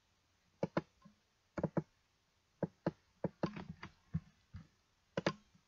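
Clicking at a computer keyboard: about a dozen short, sharp clicks, several in close pairs, with a quicker run in the middle.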